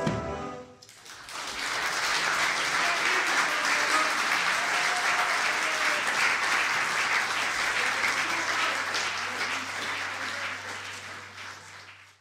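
The horn section's last held chord ends within the first second, then a small audience applauds, fading out near the end.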